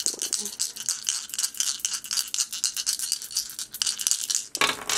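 Three astrology dice (planet, sign and house) shaken together, a fast continuous rattle of many quick clicks, then a louder clatter near the end as they are cast.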